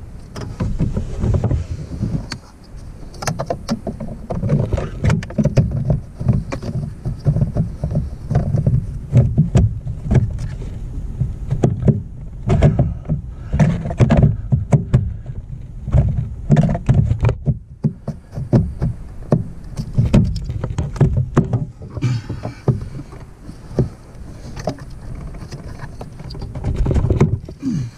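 Irregular plastic knocks, bumps and scraping as hands push and work a replacement heater blower motor up into its plastic housing under a Jeep TJ's dashboard.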